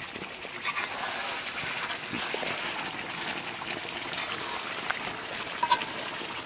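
Steady watery hiss of food cooking in a pot, with a few light clinks of a utensil.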